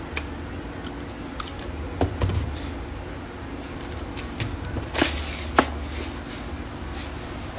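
Eyelet-setting pliers clicking as they squeeze and set a metal eyelet in a paper tag: several sharp separate clicks. About five seconds in comes a short scrape of paper, then one more sharp knock.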